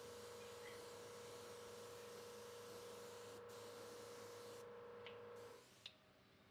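Faint steady hum on a single tone over light hiss, stopping about five and a half seconds in.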